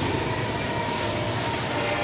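Norfolk Southern freight train passing close by, with a steady rolling noise of steel wheels on the rails as a locomotive and then covered hopper cars go past.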